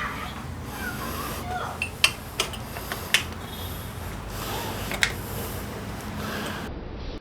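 Small metal parts clinking and scraping as they are handled, with a few sharp clicks, the loudest about two seconds in.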